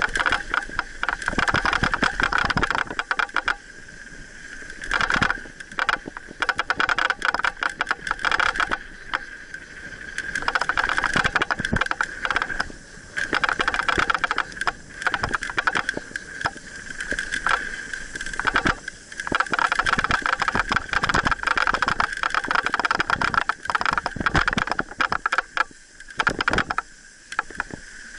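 Mountain bike descending a rough dirt trail, its chain and frame rattling over the bumps as picked up by a camera on the handlebars. A steady high buzz runs under the rattling, dropping out for a second or two a few times.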